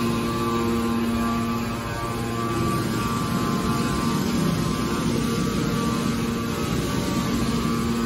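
Hydraulic scrap metal baler's power unit running: a steady machine hum with a few steady pitched tones over a low rumble.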